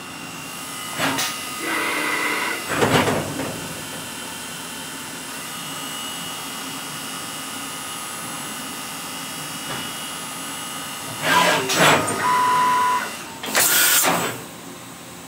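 Brother TC31-A CNC drilling and tapping machine running its program at full speed: a steady mechanical hum, broken by short clunks, brief whines and bursts of hiss about a second in, around three seconds, and again near the end.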